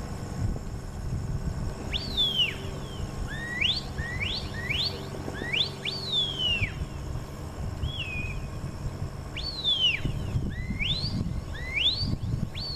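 A stock-dog handler's whistle commands to a working border collie: a string of short, sharp rising whistles and longer falling whistles, beginning about two seconds in.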